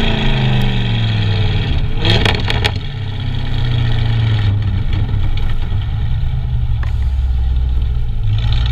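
Audi RS6 exhaust, fitted with a Fi valvetronic cat-back and catless downpipe, heard at the tailpipe while the car is driven. The engine note falls at first, a short burst of crackles comes about two seconds in, and then it settles into a steady low drone.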